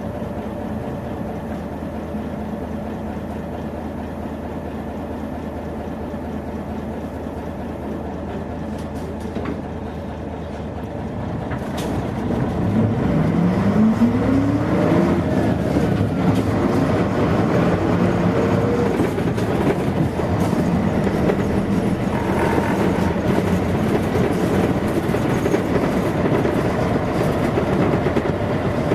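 Diesel engine of a 1989 Mitsubishi P-MP218M route bus heard from inside the cabin, idling steadily for the first ten seconds or so. It then pulls away, the engine note rising in pitch, dropping at a gear change and rising again, and it runs on at a steady, louder cruise.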